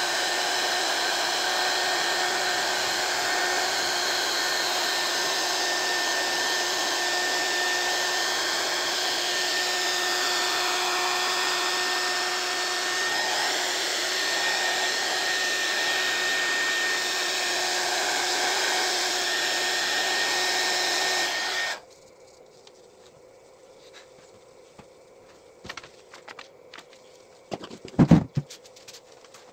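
Small 300 W hot air gun running, its fan blowing a steady rush of air with a faint high whine, until the sound cuts off suddenly about three-quarters of the way through. A few light clicks follow, and a short, loud thump comes near the end.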